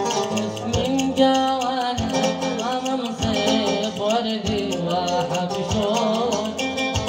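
Live Yemeni wedding music: plucked strings over a steady bass line and a regular drum beat, with an ornamented, wavering melody line.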